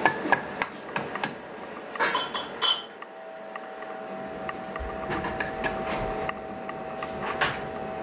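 Eggs being cracked and separated: sharp taps and clinks of eggshell against the rims of small ceramic and stainless-steel bowls, with a quick run of clinks about two seconds in. A steady hum comes in about three seconds in.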